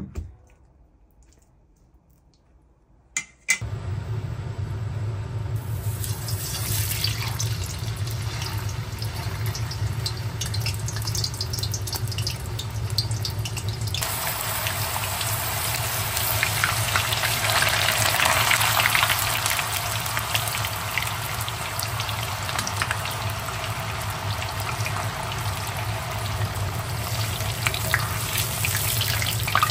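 Water running from a tap into a sink, turned on with a click a few seconds in; the flow gets louder and splashier about 14 seconds in.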